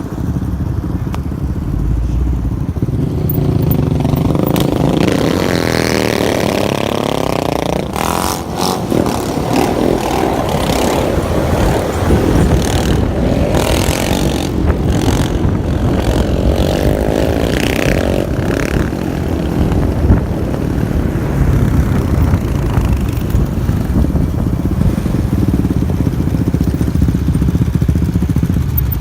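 Sport quad bike engines running and revving, the pitch climbing a few seconds in, with a spell of clattering clicks through the middle.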